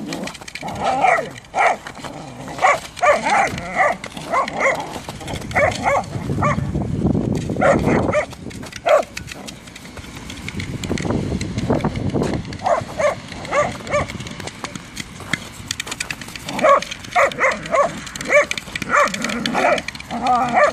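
Whippets barking in bursts of short, quick play barks while they tussle, with a low rumbling noise in the quieter gaps around the middle.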